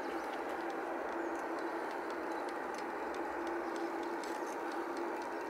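Steady distant jet engine noise from across the airport: an even hum with a faint steady tone in it, and faint scattered clicks over it.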